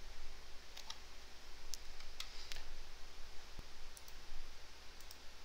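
A few scattered computer mouse clicks, irregularly spaced, over a faint steady hum.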